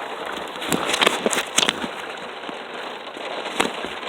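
Heavy rain hissing steadily, with a handful of sharp cracking taps, a cluster of them about a second in and one more near the end.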